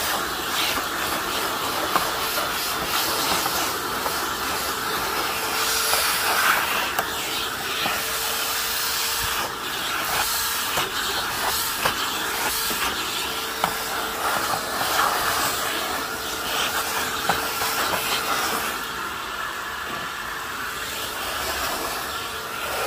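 Filter Queen Majestic canister vacuum running with its dusting-brush attachment drawn over a picture frame: a steady rush of air with a whining tone, and scratchy ticks as the bristles catch on the carved frame. The whine fades near the end.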